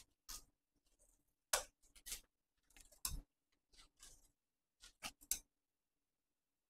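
Faint, irregular clicks and rustles of artificial roses being handled: wire stems tapping and the rose heads and holder brushing as stems are pushed into the bouquet. The handling sounds stop about a second before the end.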